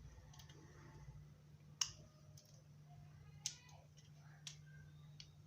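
Sharp plastic clicks and taps from handling a fan regulator as it is fitted into a stand fan's switch housing: two clear clicks about a second and a half apart, then a fainter one, over a low steady hum.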